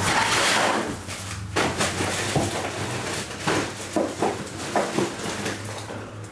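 Handling noises on a work table: a rustling scrape in the first second, then a run of irregular light knocks, clicks and short squeaks as boxes and tools are moved about.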